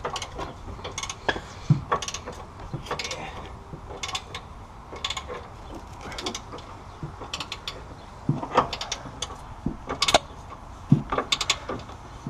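Hand ratchet wrench clicking in short runs of rapid clicks, with pauses between, as a shock mounting bolt is turned.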